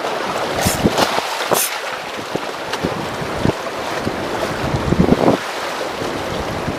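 Sea waves washing and splashing against concrete breakwater blocks, in short irregular splashes over a steady rush of surf, with wind buffeting the microphone.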